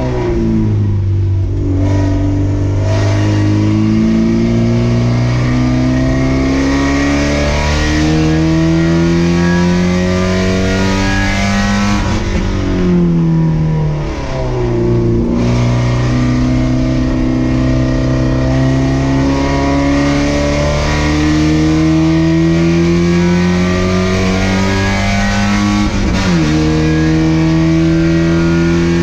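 Race car engine heard from inside the car at full load, its pitch climbing slowly for long stretches. About halfway through the pitch falls in several quick steps, as in braking with downshifts, then it pulls up through the revs again, with a brief dip near the end like an upshift.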